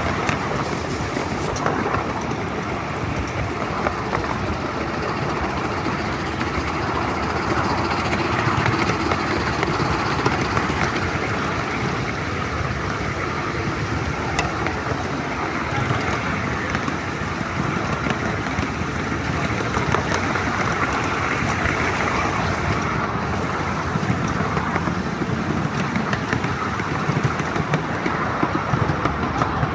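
A 7¼-inch gauge live steam train running steadily along the track, heard from the riding car behind the locomotive.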